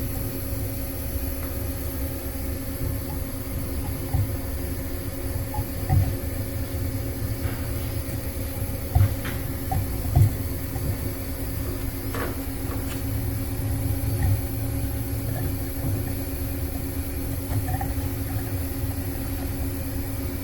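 Steady low mechanical hum with a faint high whine, and a few small clicks and taps of the greased packing rings being pushed into the pump cylinder by hand.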